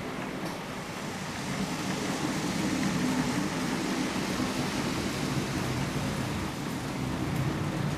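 HO scale model train running along the layout's track: a steady whir and rumble from the locomotive motor and wheels, growing a little louder after about two seconds.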